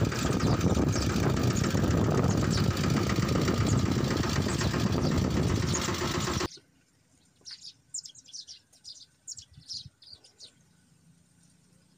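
A loud, steady engine-like rumble that cuts off suddenly about six and a half seconds in, followed by small birds chirping with a few quick high notes.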